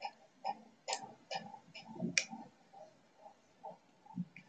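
Faint, regular ticking, about two ticks a second.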